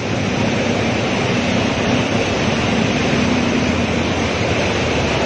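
Heavy storm downpour falling in a steady, dense rush of noise.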